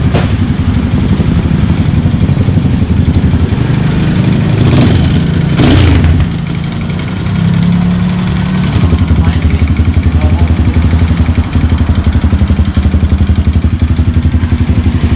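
Kawasaki D'Tracker 150's single-cylinder four-stroke engine running just after start-up, a steady, fast-pulsing exhaust note; it sags for about two seconds around six seconds in, then picks back up.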